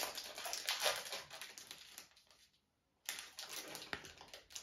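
Crinkling and rustling of a trading card pack's foil wrapper being torn open and handled, with the cards shuffled out of it; the crackle stops for about half a second midway, then resumes.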